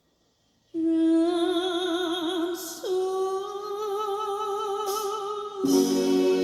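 A woman singing a long held note with vibrato that begins after a moment of silence and steps up in pitch partway through; backing music with plucked strings comes in near the end.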